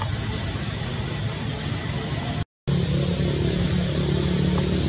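A motor engine running steadily under a constant high insect drone. The sound drops out for a moment about halfway through, and after that the engine hum is steadier and more clearly pitched.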